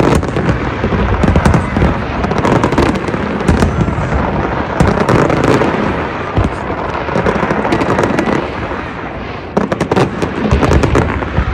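Fireworks going off in a continuous barrage: many sharp cracks and bangs over a steady rumble, growing denser in a quick run of cracks near the end.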